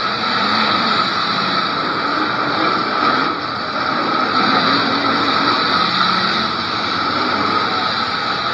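Demolition derby cars' engines running and revving together, the pitch rising and falling as the cars move around the arena.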